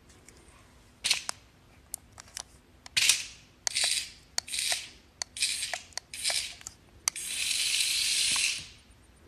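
A serval hissing and spitting in short bursts at a toy snake, about eight hisses with the last held for about a second and a half near the end, with sharp clicks between them.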